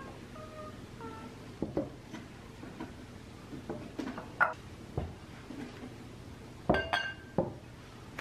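Small ceramic measuring cups and glass mixing bowls being set down and moved on a cloth-covered tabletop: scattered soft knocks and light clinks, a few ringing briefly, with a closer cluster of clinks about seven seconds in.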